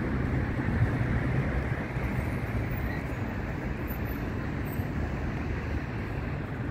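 Steady low rumble of city traffic, with no single vehicle standing out.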